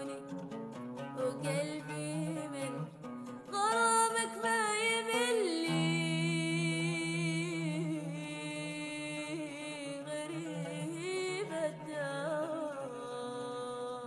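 Music: a voice sings a long, ornamented wordless melody with a wavering vibrato, over a steady low drone in the accompaniment; the loudest held phrase comes about four seconds in.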